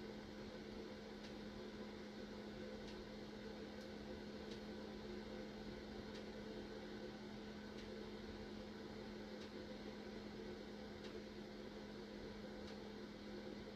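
Faint steady machine hum with a light hiss and a soft tick repeating about every second and a half.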